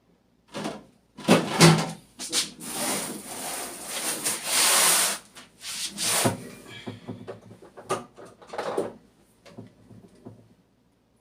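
Rubbing, scraping and knocking of a newly unboxed small refrigerator and its packaging being handled, loudest from about two to five seconds in and thinning out towards the end.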